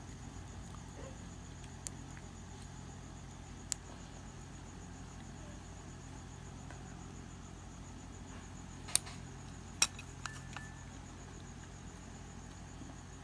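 Steady low hum of a restaurant room with a few sharp clicks of utensils against ceramic bowls, the two loudest about nine and ten seconds in.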